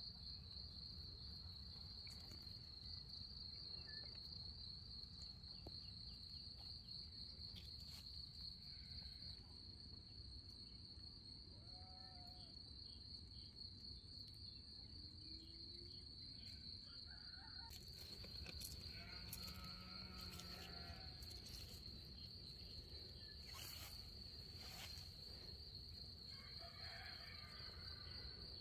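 Steady, high-pitched insect chirring over a faint low rumble, with a few light clicks in the second half.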